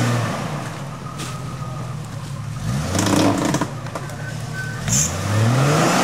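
Jeep Cherokee's engine revving in surges, its pitch climbing and dropping several times, as the Jeep works through deep, slick mud.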